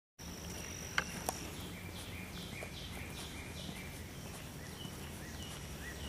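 Park ambience: a bird repeats short downward-sliding calls about twice a second over a steady high insect drone, which drops out for a couple of seconds. Two sharp clicks come about a second in.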